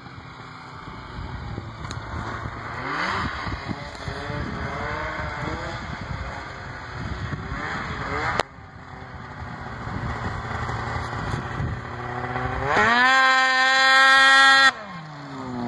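Arctic Cat Firecat 600 snowmobile's two-stroke twin engine running as the sled rides around, its pitch rising and falling with the throttle. Near the end it revs up sharply to a loud, steady high pitch for about two seconds, then drops back.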